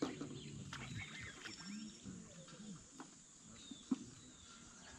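Faint outdoor ambience of distant voices and bird calls, with a single sharp click about four seconds in.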